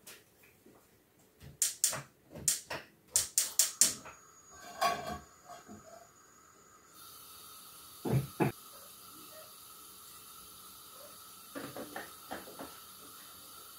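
Kitchen clatter at the stove: a quick run of sharp clicks and knocks, then about seven seconds in a steady hiss begins and runs on, with a couple more knocks soon after.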